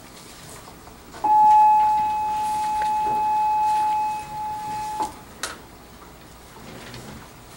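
A single steady electronic beep tone comes on about a second in, holds for nearly four seconds and cuts off suddenly; a sharp click follows soon after.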